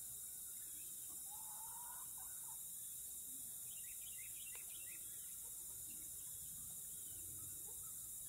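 Faint bird calls outdoors: one drawn-out call about a second in and a few short chirps around four seconds in, over a steady high hiss.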